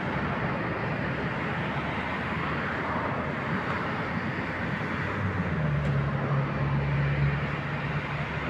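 A stationary ChS7 electric locomotive humming steadily at a standstill, with a lower, steady hum coming in about five and a half seconds in and fading near the end.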